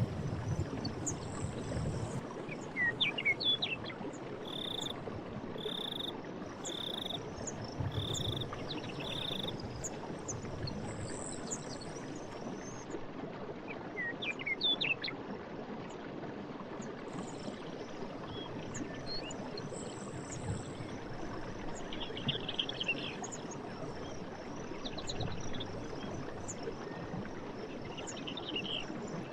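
Night forest ambience over a steady background hiss: insects trilling high and constant, short scattered chirping calls, and a clear call repeated five times at about one a second.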